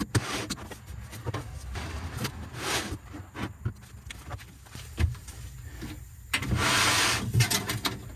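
Plywood pieces being lifted out and set back down by hand: a string of wooden knocks and clunks with short scrapes, and a longer rubbing scrape about six and a half seconds in.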